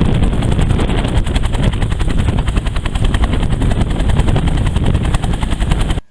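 Bell 205 helicopter passing loud, its two-bladed main rotor giving a rapid, even blade-slap beat over the turbine's noise. It cuts off suddenly near the end.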